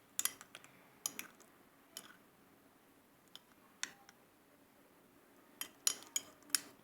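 A utensil clinking and tapping against a bowl while slime is stirred: irregular sharp clicks, a cluster just after the start and another near the end, with fewer in between.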